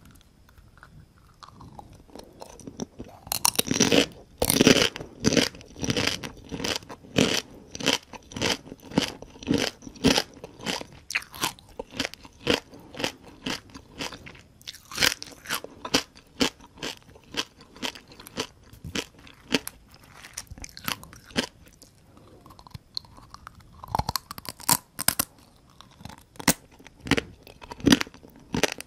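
Close-miked crunching and chewing of whole deep-fried small rice-field crabs, their shells cracking between the teeth at about two crunches a second. It starts about three seconds in, is loudest just after that, softens in the middle and grows loud again near the end.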